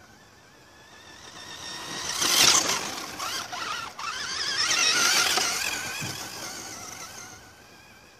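Electric RC buggy running across dirt: the whine of a Kyosho Optima's Dynamite 15-turn 540 motor and gears swells as it approaches, is loudest about two and a half seconds in, drops out briefly about four seconds in, rises again around five seconds and fades away.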